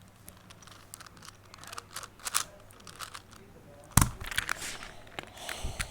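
Handling noise: scattered small clicks and rustles, with one loud knock about four seconds in and a short clatter near the end.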